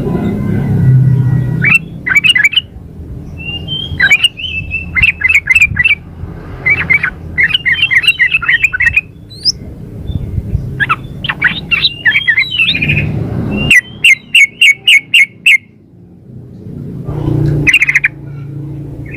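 A female yellow-vented bulbul (trucukan) calling to a male: bursts of quick, sharp chattering notes repeated with short pauses, including a fast run of about six notes a little past the middle. Under the calls there is a steady low rumble.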